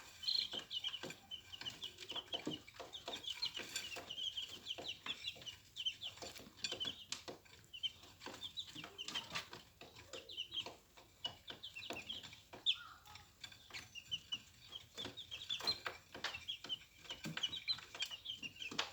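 A group of 20-day-old chicks peeping continuously in short, high chirps, with frequent light taps mixed in.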